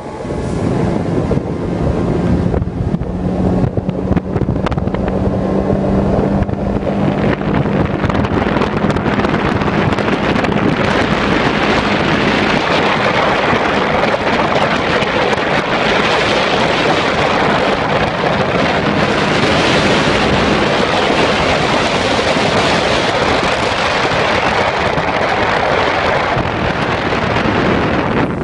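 Bass boat's outboard motor running at speed, a steady hum at first, then buried from about eight seconds in under loud wind rushing over the microphone and water rushing past the hull as the boat runs fast.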